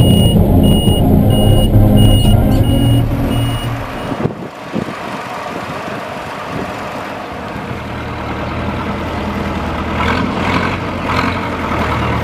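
Tractor diesel engine running, heard from inside the cab, with a regular high beeping about three times a second. About four seconds in it cuts to quieter tractor engines driving past outdoors.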